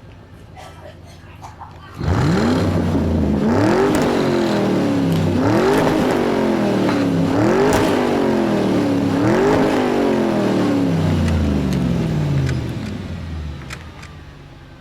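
Race-car engine revving sound from a toy remote-control racing car. It starts suddenly about two seconds in and rises and falls about five times in a regular repeating pattern, then fades out near the end.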